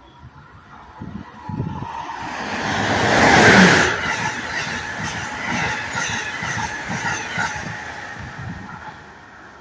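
Amtrak ACS-64 electric locomotive and its passenger coaches passing through a station at speed. The rumble builds to its loudest about three and a half seconds in as the locomotive goes by. A steady clatter of the coaches follows and fades near the end.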